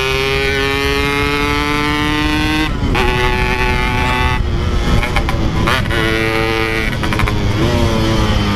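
Yamaha RX-King 135cc single-cylinder two-stroke motorcycle with a Packing Power aftermarket exhaust, accelerating hard: the engine note climbs steadily in pitch, then drops and climbs again at each gear change, about three times.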